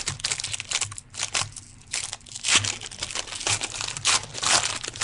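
Trading cards and their foil pack wrappers crinkling and rustling as they are handled, in a string of short bursts.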